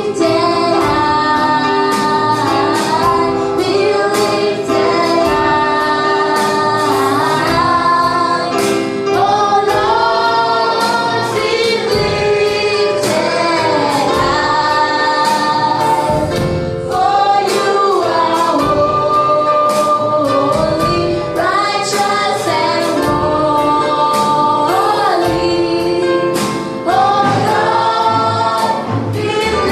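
Gospel praise and worship music: a choir and a female lead singing over a band with a steady beat.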